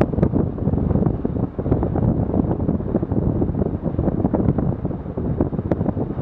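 Wind buffeting the microphone in a steady rush, over water rushing and splashing along the hull of a sailing yacht moving fast under sail.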